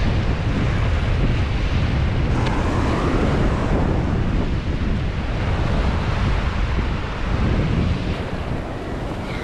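Gulf surf washing onto the beach, with wind buffeting the microphone in a steady low rumble.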